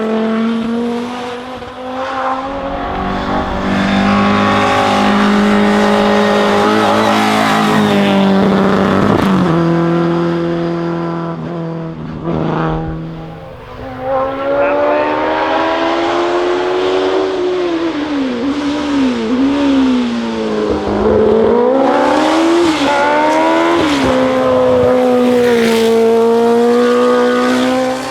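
Race car engines at full throttle on a hill climb, pulling hard with the pitch dropping at each quick upshift. About halfway through a car comes in whose revs rise and fall repeatedly as it brakes and downshifts through bends.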